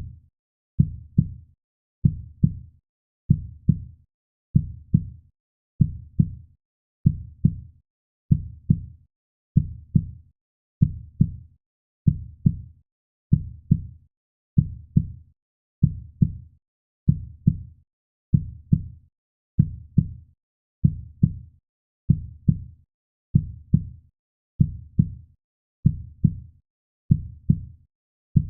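Heartbeat sound: a steady, slow lub-dub, each beat a pair of low thumps, repeating about every second and a quarter.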